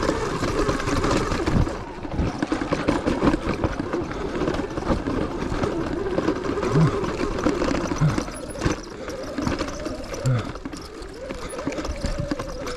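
Sur-Ron electric dirt bike's motor whining, its pitch rising and falling with the throttle, while the bike clatters and knocks over loose rocks on a steep climb.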